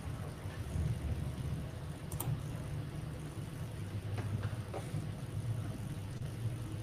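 Faint, steady low rumble of background noise on an open microphone, with a few faint clicks.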